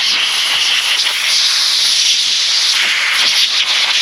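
Compressed-air blow gun hissing loudly and continuously, blasting dust out of the connector pins of an engine control module.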